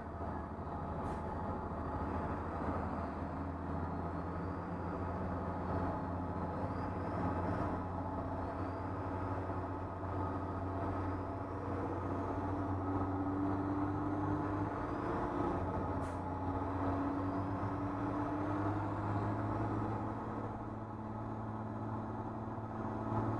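School bus engine running under load, heard from inside the cab as the bus races. The engine note climbs about halfway through and drops back near the end, with a couple of brief clicks along the way.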